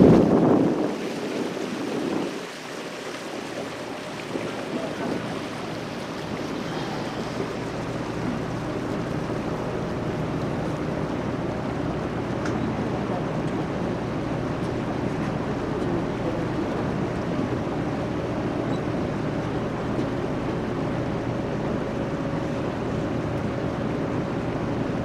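A catamaran tour boat's twin turbocharged Detroit Diesel engines running steadily, with water washing along the hull. Wind buffets the microphone at the start and dies away within the first couple of seconds.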